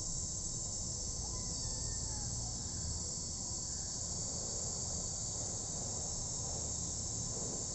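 Steady, unbroken high-pitched drone of insects over a low background rumble.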